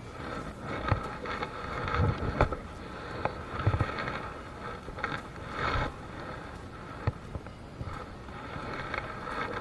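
Irregular knocks, thumps and rustles of hands handling a caught giant freshwater prawn and fishing line close to the microphone, over a steady background drone.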